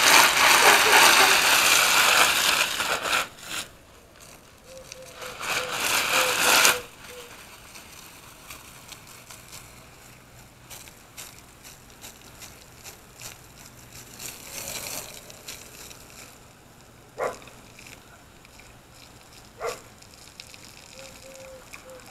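Water spraying from a hose in a steady hiss, which stops after about three seconds, comes back briefly a few seconds later, then gives way to low background with a couple of sharp clicks.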